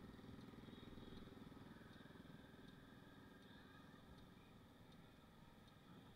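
Faint, muffled motorbike engine running while riding, slowly getting fainter.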